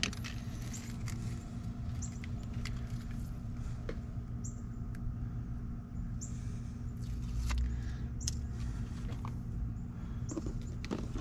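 Small scattered clicks and handling noises from hands working speaker wires and a crossover box at the van door, over a steady low hum, with a few brief high chirps.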